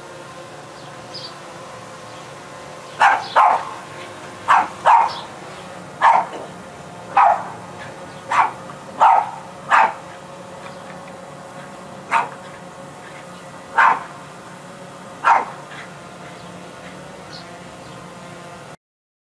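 A Boston Terrier barks angrily at a DJI Mavic Pro quadcopter hovering just above it. About a dozen sharp barks come at roughly one a second from about three seconds in, over the drone's steady propeller buzz. All sound cuts off abruptly just before the end.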